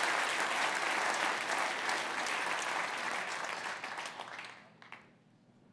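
Large audience applauding, then dying away about four and a half seconds in, with a couple of last scattered claps.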